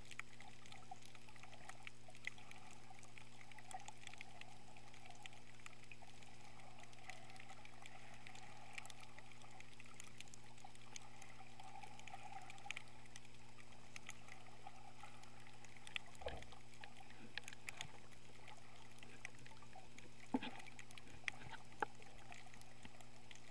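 Underwater ambience picked up by a submerged camera: a muffled watery wash with a steady low hum and scattered faint clicks and crackles, and a few sharper knocks in the last several seconds.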